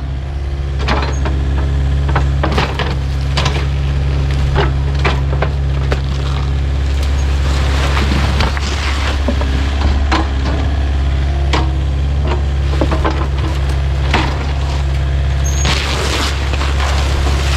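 Kubota U55-4 mini excavator's diesel engine running steadily, with repeated knocks and cracking of debris being scooped and broken up by the bucket, and a louder clatter near the end.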